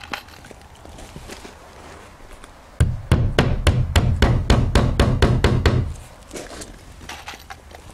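Claw hammer driving galvanized finishing nails through an LP SmartSide siding panel into the shed's wall studs: a quick run of about fifteen blows, some five a second, starting about three seconds in and lasting about three seconds, with a few faint taps before and after.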